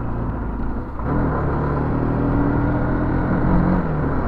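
Motorcycle engine pulling uphill on a rough, broken road, over a haze of wind and road noise. About a second in the engine note dips briefly, then it pulls again with a stronger, steadier note.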